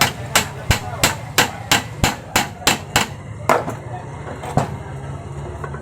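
Hammer blows struck in a steady rhythm, about three a second, slowing to two last blows and stopping near the end, over a low steady hum.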